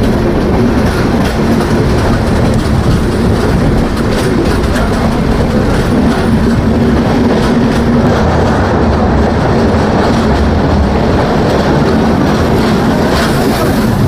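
LHB passenger coach running along the track: a steady, loud rumble of wheels on rails with a low hum and light clickety-clack.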